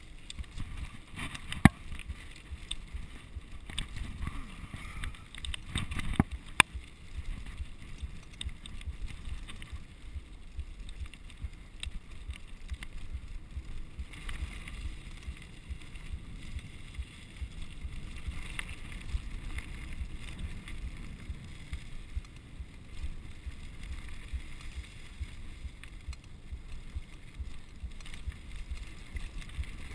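Mountain bike rolling down a dirt singletrack: tyres rumbling steadily over the ground, with wind buffeting the microphone. Sharp knocks and rattles from the bike over bumps stand out about two seconds in and again around six to seven seconds in.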